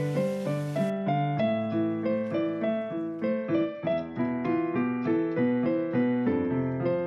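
Background piano music: a melody of single notes struck one after another at an even pace, each fading. A hiss sits under it and cuts off about a second in.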